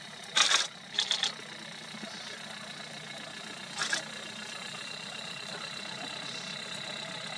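Vehicle engine idling steadily, a low hum, with short bursts of rapid clicking near the start and again about four seconds in.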